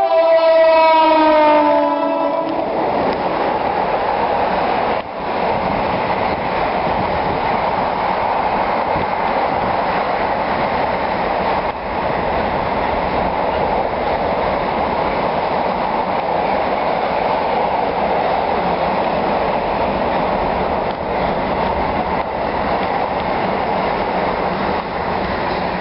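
A passing train's horn, its pitch sliding down as the train goes by, fades out in the first couple of seconds. It gives way to the loud, steady rumble and rattle of a train running past on the tracks, which dips briefly a few times.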